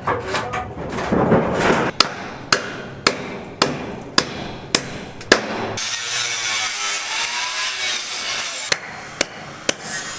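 Hammer blows at an even pace, about two a second, then a steady hissing noise for about three seconds, then a few more blows.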